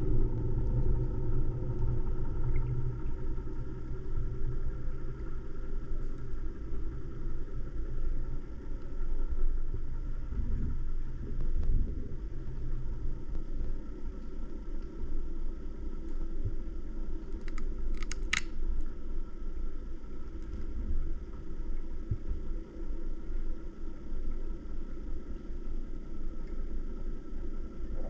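Muffled underwater rumble picked up by a diving camera, steady and low, with a faint hum that fades out about halfway through. One sharp click comes about two-thirds of the way in.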